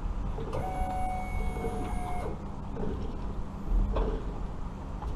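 Steady electric motor whine that starts about half a second in and stops after roughly a second and a half, over a constant low rumble, with a brief low thump near the end.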